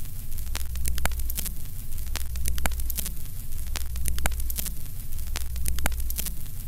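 Old film-projector countdown sound effect: a steady low hum under crackly static, with regular clicks and a short pitched blip about every second and a half.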